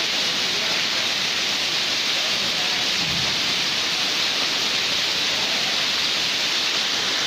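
Heavy rain pouring onto a paved street, a steady, even hiss of splashing drops.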